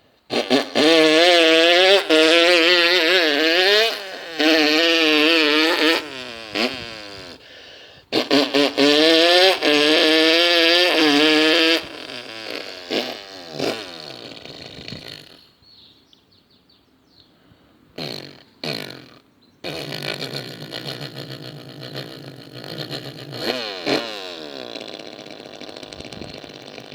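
A person imitating a motocross bike with their mouth, buzzing the lips so the pitch wavers up and down like an engine revving. There are two long, loud bursts of about six and four seconds, followed by quieter, intermittent mouth noises.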